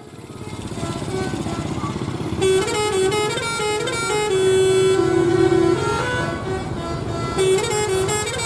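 Tour bus multi-tone "telolet" horn playing a stepping melody. It starts faintly, grows louder from about two and a half seconds in, holds a long note around the middle and plays another phrase near the end, over a steady rumble of bus engines.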